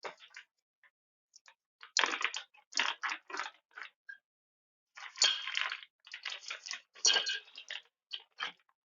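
Irregular crinkling, rustling and small clicks from parts of a bicycle engine kit being handled during disassembly, in several short clusters.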